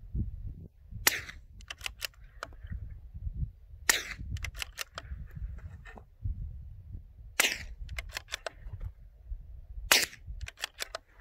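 Four suppressed shots from a CZ 457 Jaguar .22 LR bolt-action rifle with a Dead Air Mask suppressor, firing supersonic 36-grain bullets at 1280 fps, spaced about three seconds apart. Each sharp crack is followed by a few quick, fainter clicks, and wind rumbles on the microphone throughout.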